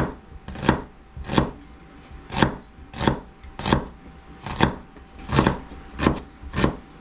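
Kitchen knife slicing a red onion on a wooden cutting board, each cut ending in a sharp knock of the blade on the board. About ten slow, even cuts, roughly one and a half a second.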